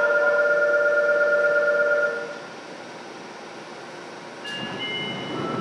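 Inside a Fukuoka City Subway 2000 series car: a loud, steady tone of several pitches sounds for about two seconds and then cuts off. After a quieter lull, fainter steady tones start near the end over a rising rumble of the car.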